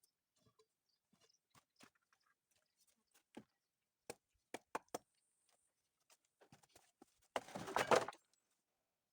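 Scattered light taps and knocks, with a few sharper knocks around four to five seconds in, then a short loud burst of rough noise lasting under a second near the end.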